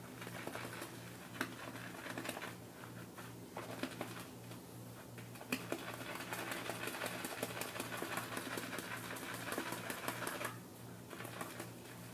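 Whipdog shaving brush swirled steadily on a puck of Neumann's Absolute Zero shaving soap: a fast, continuous run of small wet clicks and crackles as the lather is worked up and thickens.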